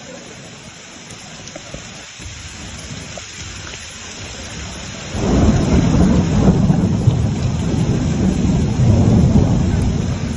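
Heavy rain pouring steadily. About halfway through, a loud rumble of thunder starts and rolls on to the end.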